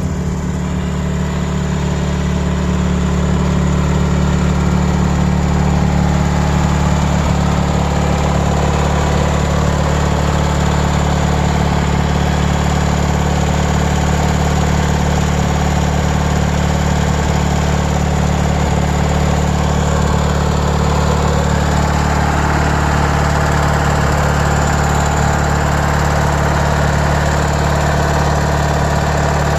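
Small gasoline engine of a 1997 MTD Yard Machines riding mower running at a steady speed.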